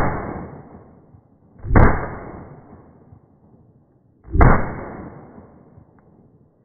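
EKOL Special 99 blank-firing pistol firing blanks: three loud shots roughly two and a half seconds apart, the first right at the start, each fading out over about a second.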